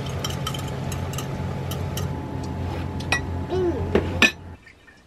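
Dishes and kitchen utensils clinking and tapping in a string of sharp knocks over a steady low hum, cutting off suddenly near the end.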